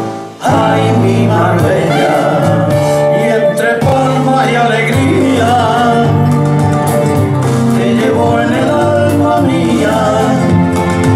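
Pasodoble sung by a male vocal duo over instrumental accompaniment, with a brief drop in the music just after the start.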